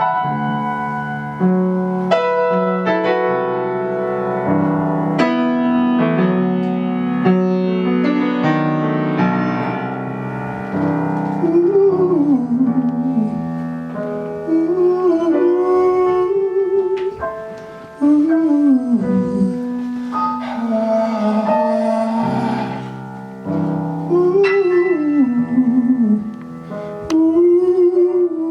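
Piano music: struck chords and melody notes, then from about eleven seconds in a wordless vocal line slides between pitches over held chords.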